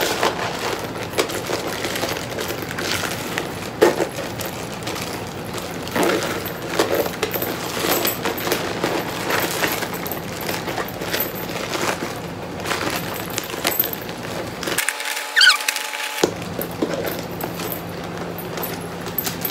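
Handbag being handled: a metal chain strap and faux-pearl beaded handle clinking, with rustling and many scattered clicks.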